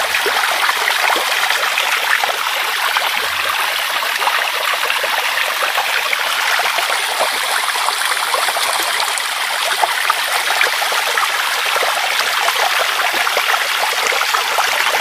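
Tap water running steadily from a bathroom faucet into the sink, splashing over hands being washed under the stream.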